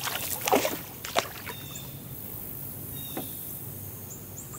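Hooked fish splashing and shaking off water as it is lifted out beside a canoe, a few quick splashes in the first second, then a single sharp knock.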